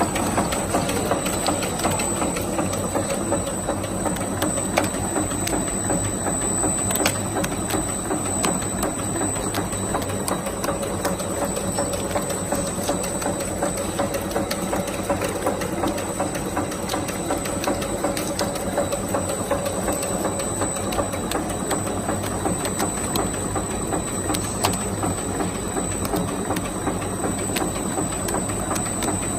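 Bubble gum production line machinery running: a steady, fast mechanical clatter with a constant high whine.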